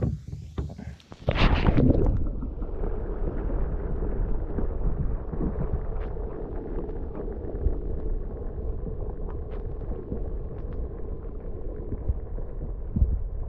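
A splash as an action camera is plunged into the river about a second in, then a steady muffled underwater rumble and sloshing heard through the submerged camera, with scattered small clicks.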